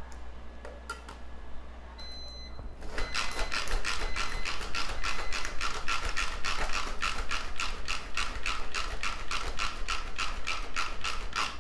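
Pampered Chef manual food processor being pumped by hand: its plunger top is pressed down in a quick, even rhythm of about three strokes a second, starting about three seconds in, as the blades chop onion chunks. A few light clicks come before, as the lid goes on.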